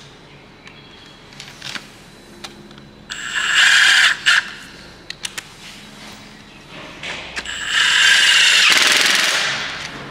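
A power tool run in two bursts, about a second long and then about two seconds long, as bolts are driven on the drive unit. Sharp clicks of metal tools come in between.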